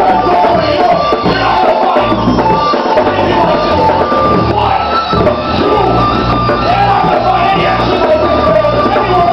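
Loud rock music with a singing voice over a steady pulsing bass.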